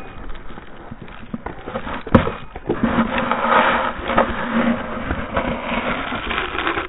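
Handling noise on a small action camera's built-in microphone: rubbing and scraping as it is pressed against clothing and gloves, with several knocks, the sharpest about two seconds in.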